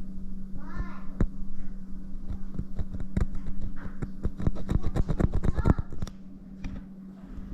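Sharp knocks and clatter on the rusted metal of a truck's cab mount, coming faster into a quick run about five seconds in and stopping a second later, over a steady low hum.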